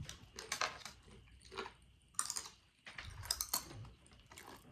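Popping candy crackling and snapping in a mouth while being chewed, a run of irregular little clicks and pops.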